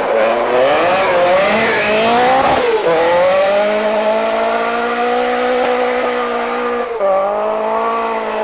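Group B rally car engine at full throttle on a gravel stage: the engine note climbs for the first couple of seconds, drops briefly about three seconds in, then holds steady at high revs, dipping again about seven seconds in.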